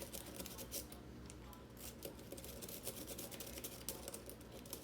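Faint, rapid small metallic clicks and scratches of a lock pick working the pins inside a Schlage mortise cylinder under tension, as the picker searches for a binding pin.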